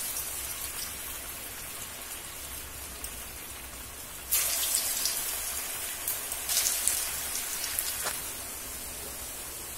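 Cabbage balls sizzling as they deep-fry in hot refined oil, a steady crackling hiss. It swells suddenly about four seconds in as another ball is slipped into the oil, and again a couple of seconds later.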